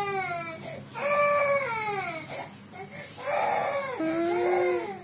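A toddler crying in a tantrum, in long wails that each slide down in pitch: two close together, then a short pause, then a third.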